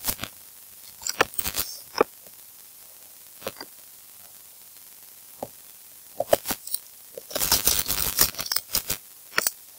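Computer keyboard typing: irregular bursts of sharp keystroke clicks, a few at first, then a dense run of rapid keystrokes in the second half.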